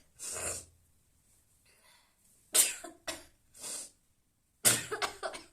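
A woman sneezing twice: a sharp, sudden sneeze about two and a half seconds in and another near the end, with quick breaths drawn between them.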